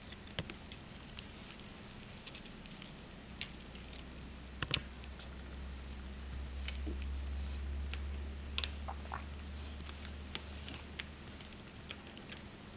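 Three-week-old Russian Blue kittens scrabbling as they climb, their claws catching and scratching on woven fabric and carpet in irregular small clicks and scrapes. A low rumble runs through the middle.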